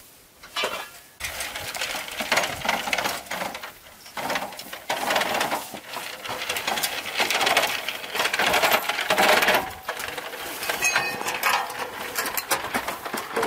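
Rapid clinking and clattering of handled objects, starting about half a second in and going on with short breaks.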